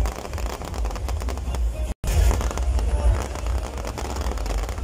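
Aerial firework shells bursting overhead into crackling stars: a dense, rapid crackle of small pops over a steady low rumble. The sound cuts out for a moment about two seconds in.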